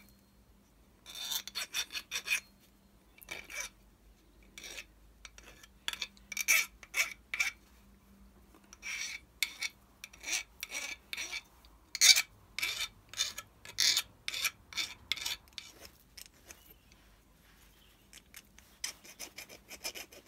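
Hand file scraping back and forth across a small cast pewter part, in runs of short strokes broken by pauses, with a longer pause near the end. The piece is being filed down so that it will turn in its mating part.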